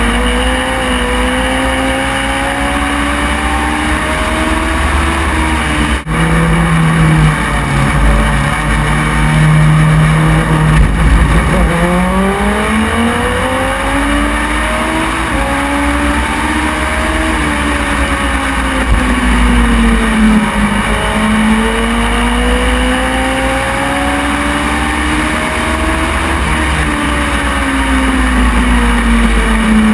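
Race car engine heard onboard at racing speed, its pitch climbing along the straights and falling off into the corners, lap after lap about every nine seconds, over a constant low rumble. A brief dropout about six seconds in.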